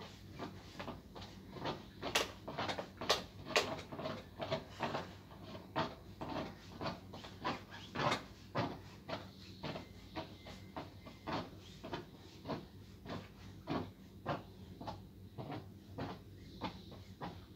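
Handheld garment steamer being worked down a hanging garment: frequent irregular light clicks and knocks, about two or three a second, over a steady low hum.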